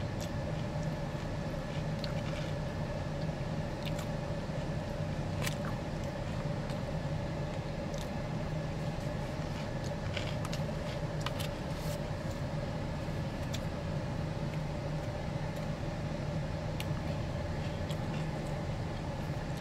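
Steady hum of an idling car heard from inside the cabin, with a few faint clicks and taps scattered through it.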